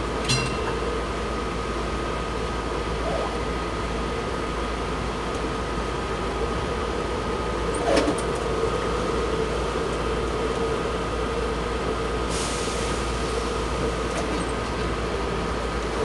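Cabin sound of a Can-Car Rail ALRV articulated streetcar running along its track: a steady rolling noise with a steady electrical hum from the drive. There is a sharp click just after the start and a louder clack about 8 seconds in, and hiss rises near the end.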